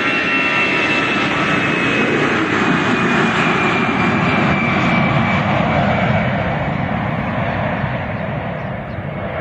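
Jet airliner's engines passing close, a loud steady roar with a high whine that slowly falls in pitch; the roar begins to fade after about six seconds.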